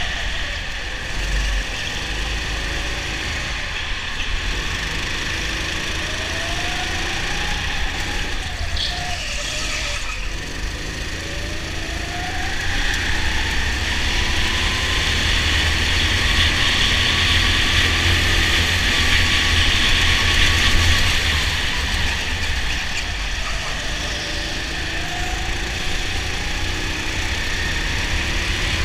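Racing go-kart's motor heard from an onboard camera, its pitch rising as the kart speeds up and falling again into the corners, over a steady rush of wind and tyre noise. The rushing grows louder for several seconds in the middle, on the longer straight.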